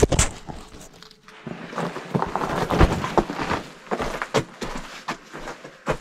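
Footsteps and rustling in dry leaves and twigs: irregular crunching and crackling, loudest about three seconds in.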